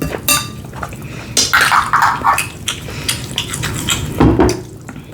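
Close-miked eating sounds: wet chewing and mouth noises, with light clinks of cutlery and dishes.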